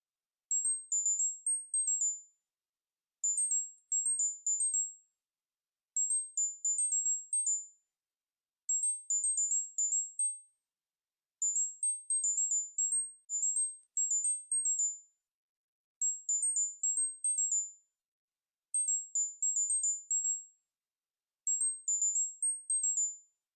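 Very high-pitched electronic tones for tinnitus relief, pitched to match a ringing in the ears. Quick notes hop up and down in short phrases of about two seconds, repeating every two to three seconds with brief silent gaps.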